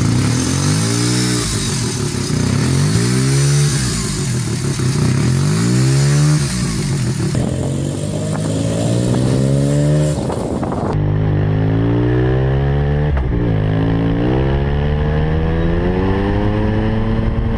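Suzuki RE5's 497 cc single-rotor Wankel engine being revved up and down again and again, its pitch rising and falling with each blip. The sound is buzzy, likened to a weed whacker.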